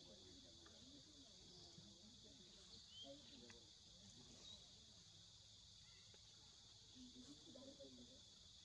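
Near silence: a faint, steady chorus of forest insects, with a faint murmur of distant voices and a couple of short bird chirps.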